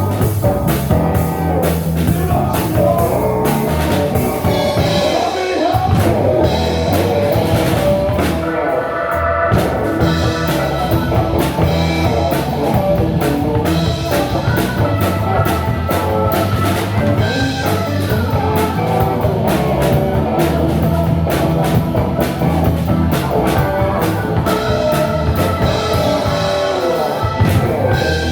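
A live blues band playing: drum kit, bass, keyboard and electric guitar together at a steady beat.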